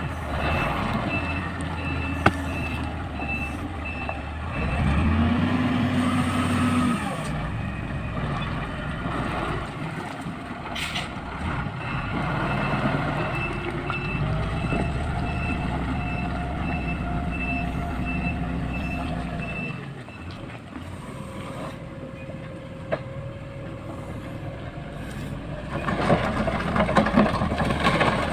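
Motor grader's diesel engine running under load, with its reversing alarm beeping about twice a second in two spells as the machine backs up; the engine noise grows louder and rougher near the end.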